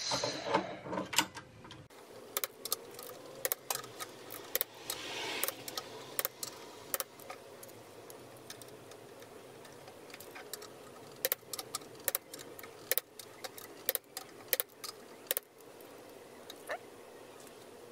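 Ratcheting torque wrench clicking in short, irregular strokes, with light metal clinks, as the jackshaft sprocket bolts are tightened in steps.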